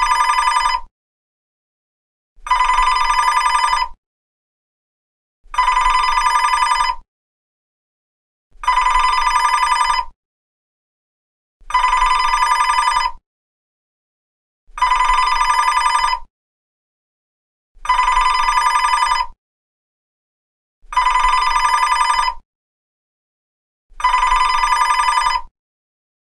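Telephone ringing: a fast trilling ring about a second and a half long, repeated every three seconds or so with silence between, about nine rings in all.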